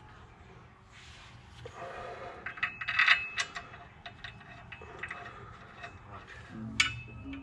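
Light metallic clinks, clicks and scraping of parts and tools being handled under a vehicle, with a cluster of sharp clicks about three seconds in and a single sharp click near the end.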